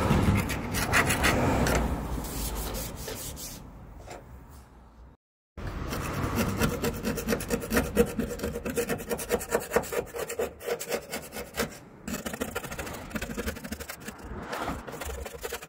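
Razor-blade scraper scraping crusted grime and rust off the Subaru Sambar van's painted steel cargo floor and sill, in quick repeated strokes. The sound cuts out abruptly for about half a second around five seconds in, then the scraping resumes.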